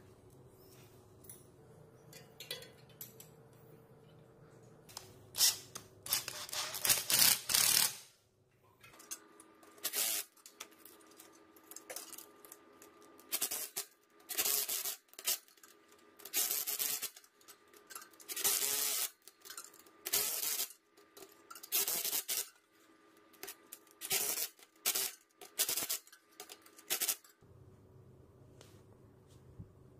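Cordless drill with a socket running in short bursts as it drives the nuts that bolt a chain sprocket to a bicycle's rear wheel hub. There is one longer run of a few seconds first, then about a dozen bursts of a second or so each.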